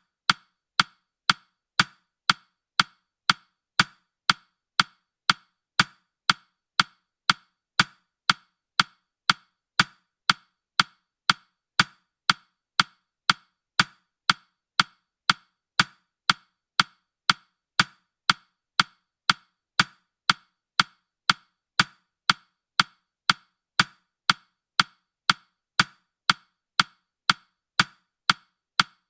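Ticking sound effect of a countdown clock: sharp, even ticks at about two a second, each dying away quickly.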